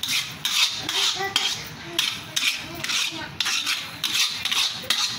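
A ladle scraping and stirring thick wheat halwa round a heavy pan in repeated strokes, about two a second. The halwa is cooked to the point where, with ghee added, it gathers on the ladle and no longer sticks to the pan.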